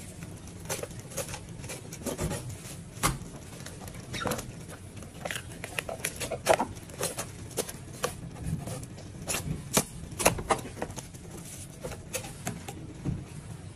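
Fillet knife cutting through grouper flesh along the backbone and ribs: irregular small clicks and scrapes as the blade catches on bone and taps the cutting board, over a steady low hum.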